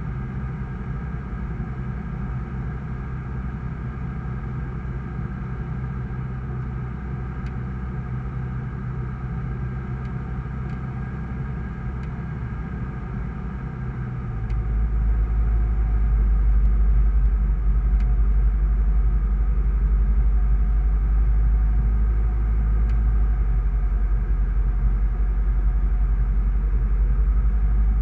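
Sling 2 light aircraft's Rotax 912 flat-four engine and propeller running steadily in flight, heard from inside the cockpit. About halfway through the sound gets louder as a deep rumble comes in and stays.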